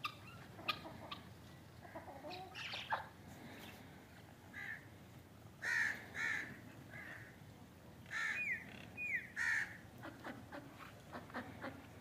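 Short, harsh calls from a mixed flock of crows and chickens, coming a few at a time and most frequent between about six and ten seconds in.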